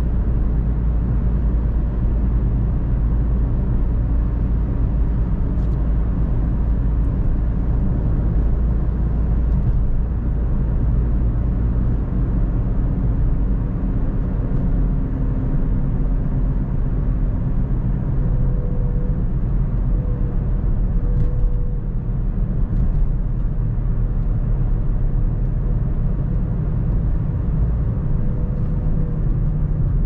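A car driving at steady speed: a constant low rumble of road and tyre noise mixed with engine noise, with a faint steady hum in the second half.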